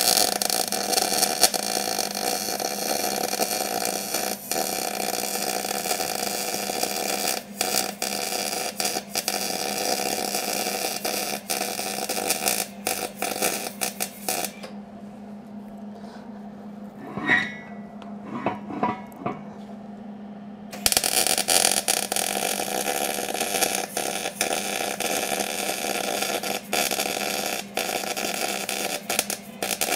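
MIG welder arc crackling steadily as a bead is laid around a seized wheel bearing race inside a truck hub, so that it shrinks and comes loose. The arc stops about halfway for several seconds, then strikes again and runs until just before the end, over a steady low hum.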